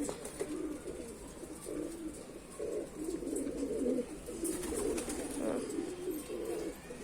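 Several domestic pigeons cooing continuously, their low calls overlapping.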